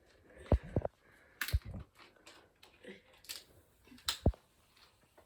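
Handling of just-opened Sprite drinks: a few separate sharp clicks and short low thuds, with quiet gaps between.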